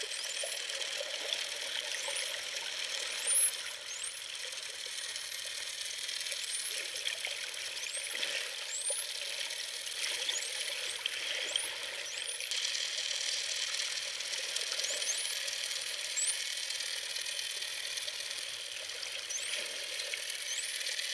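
Dolphins whistling underwater: many short, quickly rising high-pitched whistles, one after another, over a steady hiss of the sea, with faint clicks. A short louder noise about three seconds in.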